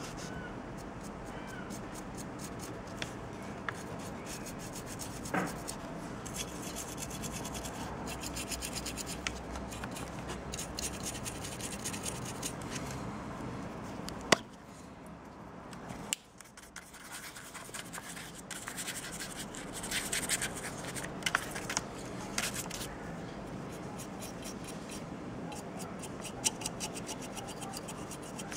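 Paint brush dry-brushing a plastic miniature: quick, scratchy strokes of the bristles scrubbing over the model's raised scales and wiping off on paper, with one sharp click about halfway through.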